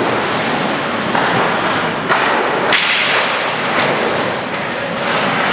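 Ice hockey play at close range: skate blades scraping the ice over a steady hiss, with sticks and puck clacking and one sharp crack about three seconds in.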